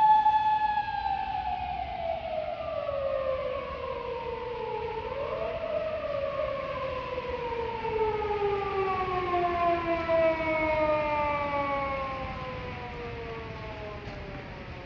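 Emergency vehicle siren holding a steady tone, then sliding slowly down in pitch over about ten seconds, with a brief upward swell about five seconds in. It fades out near the end.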